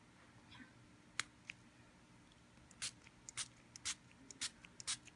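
Faint short spritzes and clicks, scattered and coming more often in the second half: a small Beados water spray bottle misting a freshly made bead design, with light handling of the plastic beads and template.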